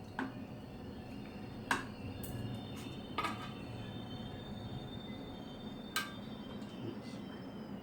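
Eating utensils clinking against a bowl or dish, about five light clinks at irregular intervals, over a low steady hum.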